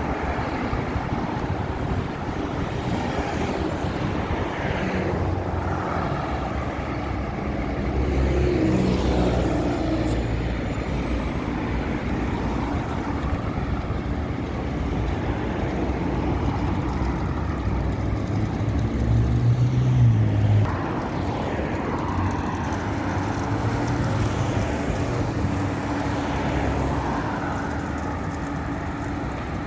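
Road traffic: a steady wash of cars passing, with a louder vehicle rumbling by about nine seconds in and another, the loudest, about twenty seconds in.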